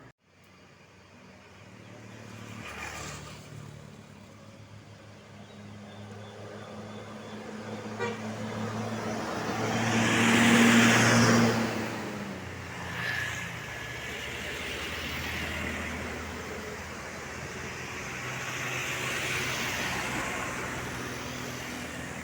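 Road traffic going past on a hill. A large vehicle's engine builds up and passes close about ten seconds in, the loudest moment, and more traffic follows with a smaller swell near the end.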